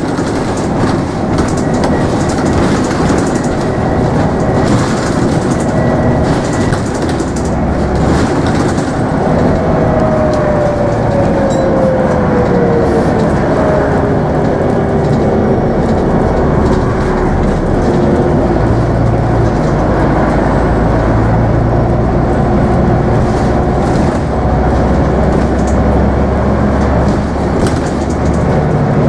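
Interior noise of a Scania N94UB Omnidekka double-decker bus under way: its diesel engine and road noise run loud and steady, with rattles from the cabin fittings. About a third of the way in, a whine falls in pitch, and from a little past halfway a deeper engine drone grows stronger.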